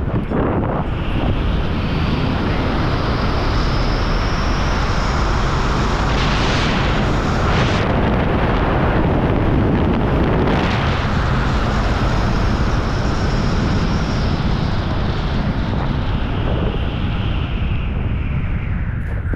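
Loud, steady rush of wind buffeting the microphone as the camera drops quickly through the air.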